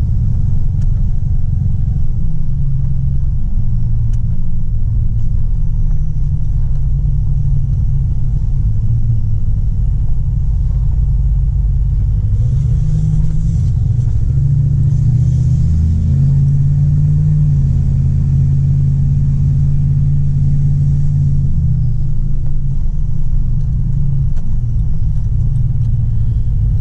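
1999 Dodge Ram 1500 pickup driving, its engine and road rumble steady and low; the engine note rises about twelve seconds in, holds, and drops back near the end.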